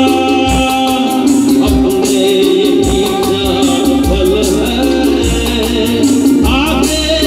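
Live band music amplified through a PA system: a male singer with electric guitars, keyboard and steady percussion strikes.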